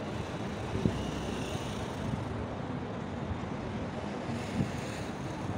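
City street traffic noise: a steady wash of car engines and tyres, with a short low thump about a second in.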